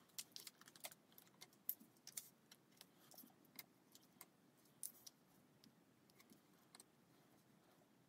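Faint, scattered light clicks and taps from handling a plastic sheet of adhesive gems and picking gems off it with a pick-up tool on a craft mat. The clicks are frequent at first and thin out after about five seconds.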